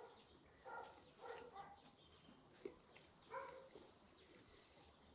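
Faint short animal calls, several in a row at about one a second, with a single sharp click a little past halfway.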